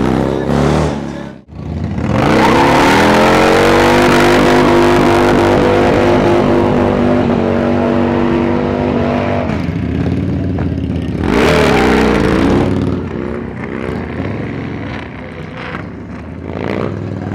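Motorcycle engine revving up and held at high revs for about seven seconds before easing off, then a second, shorter rev, with the engine running lower after that.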